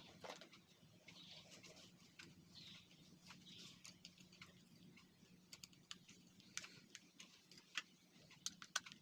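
Faint, scattered clicks and taps of small kettle parts being handled and fitted during the repair, a few sharper ones in the second half, over a faint steady low hum.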